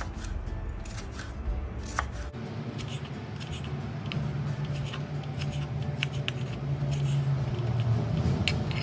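Kitchen knife slicing a tomato into wedges on a wooden cutting board: soft cuts and scattered light taps of the blade on the board.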